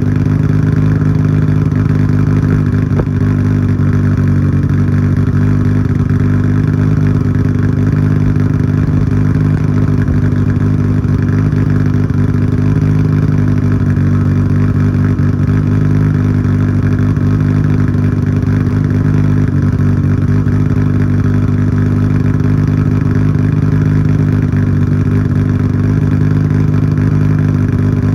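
Nissan Skyline GT-R R34's RB26 twin-turbo straight-six, fitted with JUN high-lift cams, idling steadily through a Tomei Expreme Ti titanium exhaust with its bolt-in silencer fitted, warming up after a cold start. The pitch holds level throughout, with no revving.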